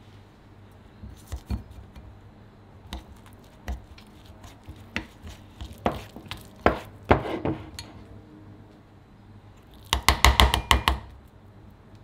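A metal spoon stirring and scraping a thick seasoning paste in a ceramic bowl, with scattered clinks of spoon on bowl. About ten seconds in comes a quick run of rapid clinks.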